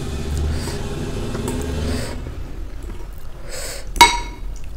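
Eating noises from soupy noodles, then a metal fork strikes the glass bowl with a single sharp clink about four seconds in, the loudest sound, ringing briefly. A low rumble underlies the first half and stops about two seconds in.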